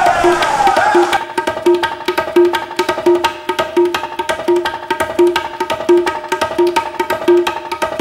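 Background music: a song whose sung phrase ends about a second in, followed by an instrumental passage with a steady percussive beat about every two-thirds of a second.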